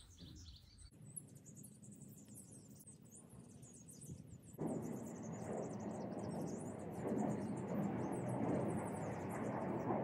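Small birds chirping and twittering in quick short calls, with a louder steady background noise setting in about halfway through.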